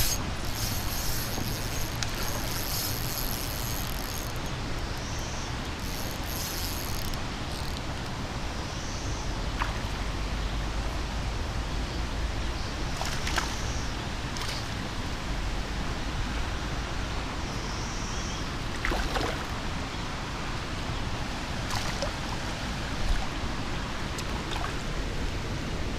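Creek water running steadily in a continuous rushing hiss, with a few faint brief scrapes and clicks over it.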